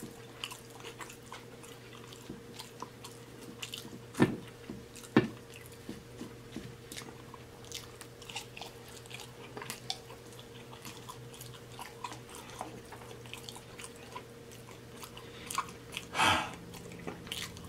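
Close-miked chewing and wet mouth smacking of a man eating syrup-soaked banana nut pancakes with walnuts: many small clicks, with a few louder ones about four and five seconds in and again near the end. A faint steady hum runs underneath.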